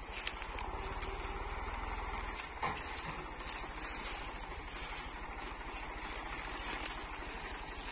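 Tractor engine idling steadily with an even low throb, with the odd rustle and knock of cane stalks being loaded.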